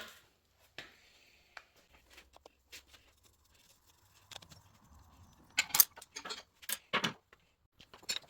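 Scattered clicks and knocks of tools and bike parts being handled while a dirt bike is taken apart, with a few louder knocks about six to seven seconds in.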